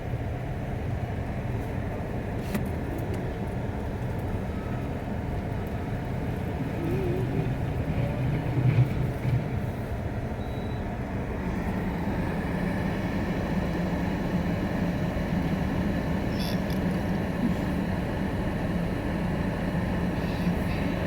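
Skid steer loader engine running steadily, its note rising a little and holding higher a little past halfway.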